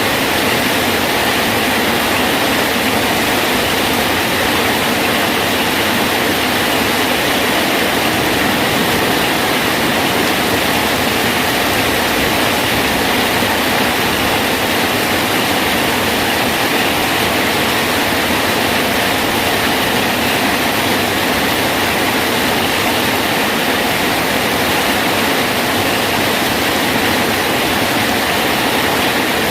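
Rain falling steadily on a bridge, a constant even hiss with no breaks or single drops standing out.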